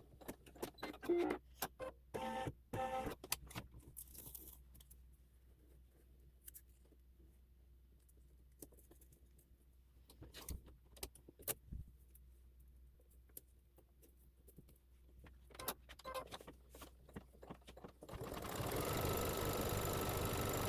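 Embroidery machine stopped between stitching steps: scattered clicks, knocks and light rattling of handling at the machine, then the machine starts stitching again, running steadily near the end.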